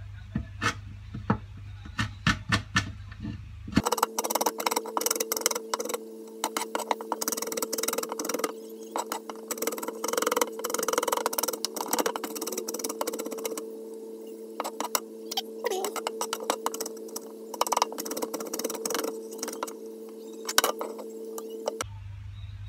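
Kitchen knife chopping and mincing garlic on a wooden cutting board: a few scattered knocks at first, then, about four seconds in, a long run of quick blade knocks on the wood that stops shortly before the end. A steady hum lies underneath throughout.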